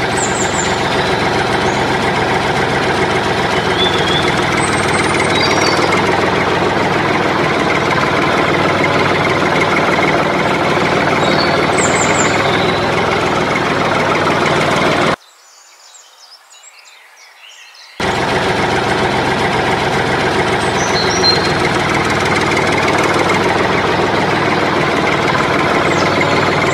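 A tractor engine running steadily with a knocking note, dubbed over the toy tractor scene, with a few bird chirps. The engine sound cuts out for about three seconds a little past the middle, leaving only faint background, then resumes.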